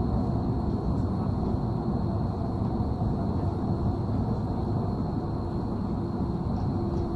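Tram running, heard from inside the car: a steady low rumble of wheels and running gear with a faint high whine.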